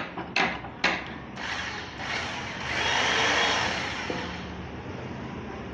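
A few sharp knocks in the first second, then a hand-held electric jigsaw's motor running free with no wood under the blade. It swells to its loudest about three seconds in, then settles lower and steady.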